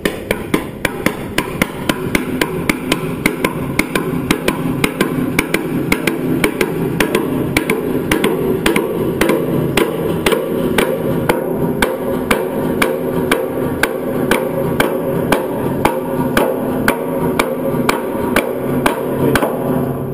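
Regular sharp knocks like hammer blows, about two or three a second, over a steady low hum.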